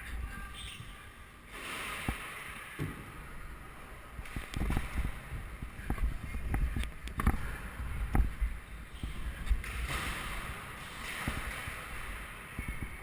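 Scooter ride picked up by the microphone: constant low wind rumble with irregular knocks and rattles as the wheels roll over the ground.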